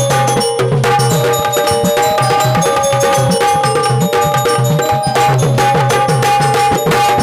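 Instrumental folk dance music: an electronic keyboard holding a melody over fast, driving drumming on a barrel drum.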